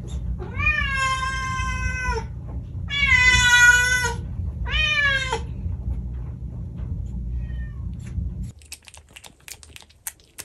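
A cat meowing three times in long, drawn-out calls, the middle one the loudest. Near the end come quick, faint wet clicks of a cat licking at a squeeze-tube cat treat.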